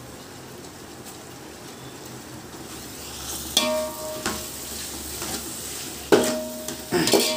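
Onion, tomato and fresh herbs sizzling quietly in hot oil in an aluminium pot. From about halfway through, a steel ladle clanks against the pot four or five times, each strike leaving the pot ringing briefly.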